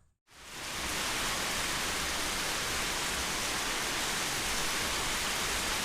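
Steady rain falling, a dense even hiss that fades in quickly just after a brief silent cut at the start.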